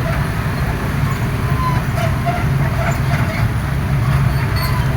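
Heavy diesel engine of an excavator running steadily with a constant low rumble.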